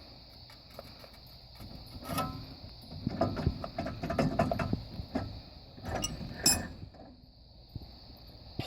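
Metal clinking, scraping and clattering as the front hub and brake rotor of a 1983 Chevy K10 are worked off the spindle, with one sharper clank near the end. The hub's bearing is shot, its balls broken out.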